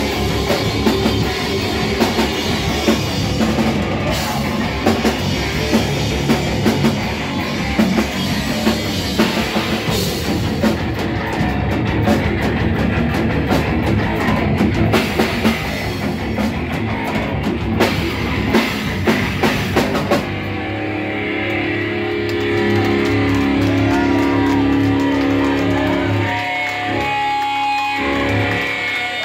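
Live heavy rock band playing loud: distorted electric guitars, bass and drum kit. About two-thirds of the way through the drums stop and the guitar is left ringing on in long, wavering notes.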